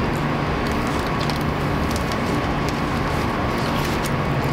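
A steady low motor hum, with scattered light clicks and rustles of eating at the table.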